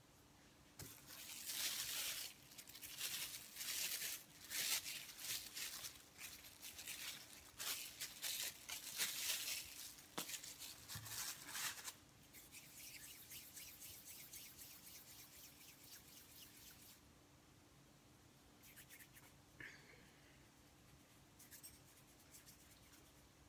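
Crinkly rustling of plastic wrapping handled in quick bursts for about ten seconds, then a fainter steady hiss and a few light taps.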